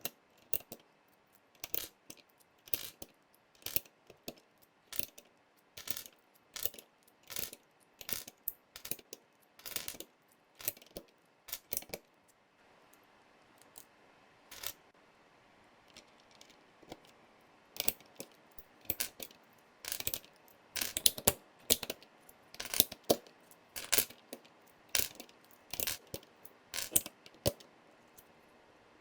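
Hard plastic keycaps clacking one at a time as they are handled during a keycap swap on a mechanical keyboard. The clicks come one or two a second, thin out for a few seconds about halfway, then return closer together and louder.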